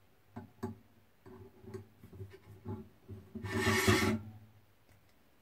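Thin steel wire and pliers clicking and rubbing against metal while a wire coil is worked on a jig, with a longer metal-on-metal scrape about three and a half seconds in.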